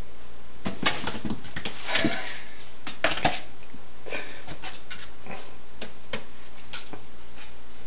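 Pet cat chasing a laser dot: claws scrabbling and paws tapping against a door and wood floor in quick irregular bursts, with a few short whiny animal cries mixed in.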